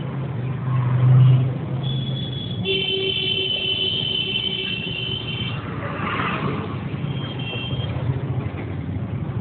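Street traffic: a motor vehicle's engine passing close in the first two seconds, then a vehicle horn held for about three seconds, with a shorter horn toot near the end.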